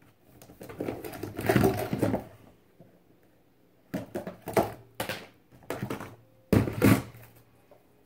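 Irregular rustling and knocking of objects being handled and moved about: about two seconds of it, a pause, then a few shorter knocks and rustles later on.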